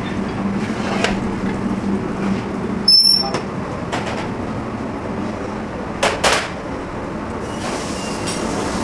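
A steel grill tray clanks sharply against metal, with a brief ring, as it is pulled out from under an overhead salamander grill about three seconds in. A couple of lighter knocks follow about six seconds in. Underneath runs a steady kitchen rush with a low hum.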